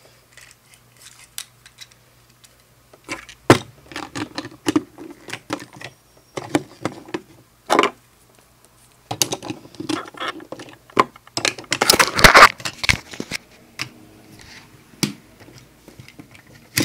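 Plastic LEGO parts clicking, knocking and rattling as they are handled, with the loudest cluster of knocks about twelve seconds in.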